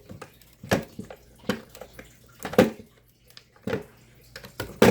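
Sharp plastic clicks and knocks, about a dozen spread irregularly, as a hard drive and a plastic drive docking station are handled, with the loudest knock near the end.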